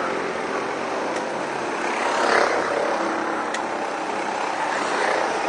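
Small go-kart engines buzzing as several karts drive through a corner, growing louder about two seconds in as they come closer.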